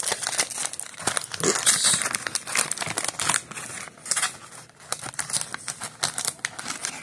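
Foil pouch and cardboard box of an ink cartridge crinkling and rustling as they are handled: a dense, irregular run of crackles and small ticks.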